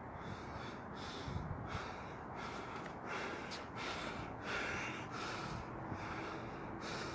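A man breathing hard in quick, hissing breaths, panting after exertion.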